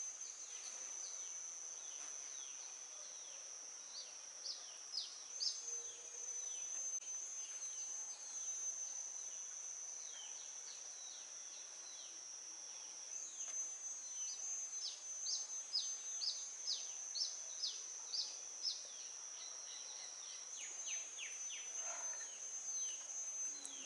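Background chirping of small birds: clusters of quick falling chirps over a steady high-pitched insect drone that shifts slightly in pitch now and then.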